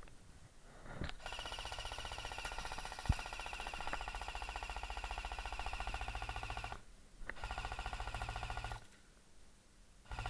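Airsoft electric gun firing full-auto: a long burst of rapid rattling shots of about five seconds starting a second in, a shorter burst of about a second and a half after a brief pause, and another starting near the end.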